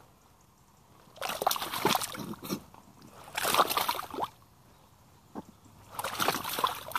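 Boots wading through deep, watery mud: three sloshing, splashing steps, each lasting about a second, a couple of seconds apart.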